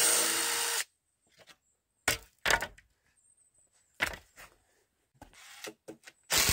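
Cordless drill running in two short bursts of about a second each, at the start and near the end, with a few sharp wooden knocks and clunks between them as stake pieces are handled.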